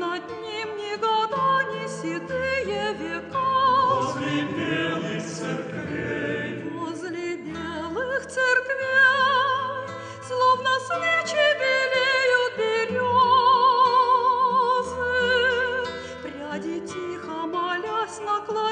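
A slow choral church song with instrumental accompaniment: a melody of long held notes with wide vibrato over long sustained bass notes.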